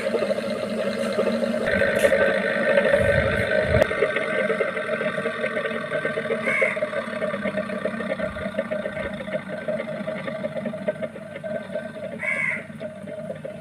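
A steady droning background with a bird's short call heard twice, about six and twelve seconds in.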